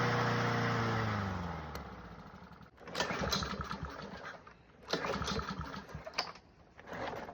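Small lawnmower engine running, then dying out with a falling pitch about a second and a half in; then three pulls of the recoil starter about two seconds apart, the engine turning over with a thump of compression but not catching. It has compression but won't start, which the owner narrows down to fuel or spark.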